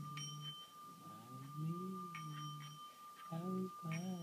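Singing bowl held at one steady ringing tone by a stick rubbed around its rim, under a man's low wordless humming in short phrases that slide up and down in pitch.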